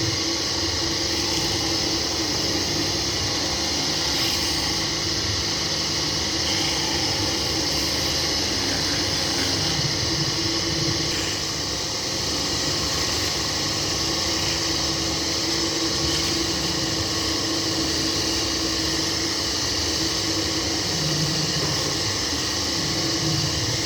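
Wood-turning lathe running steadily: a constant hum with a strong hiss over it.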